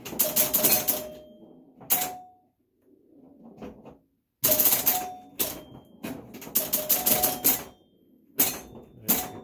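Super Flite electromechanical pinball machine in play: clusters of rapid mechanical clicking as it scores, with short ringing notes, broken by brief lulls and a quieter stretch from about two to four and a half seconds in.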